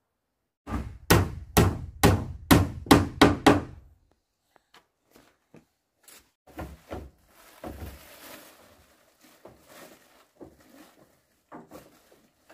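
Hammer blows on wood during house building: a quick run of about seven heavy strikes, roughly two a second, in the first few seconds. Scattered lighter knocks and handling noise follow.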